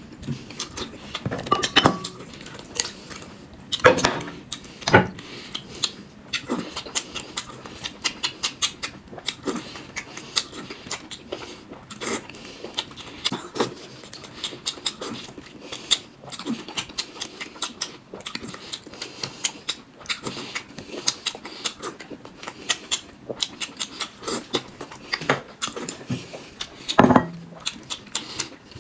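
Close-up eating sounds of a man chewing boiled dumplings: a steady run of small wet mouth clicks and smacks, with a few louder mouthfuls about two, four, five and twenty-seven seconds in. Chopsticks click now and then against the plate.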